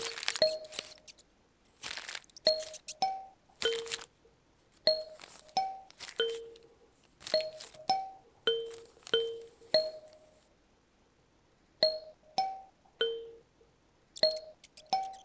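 Kalimba plucked in a slow, gently ringing melody of a few repeated notes, with a short pause partway through. Brief rustling sounds, like paper, come in between some of the notes.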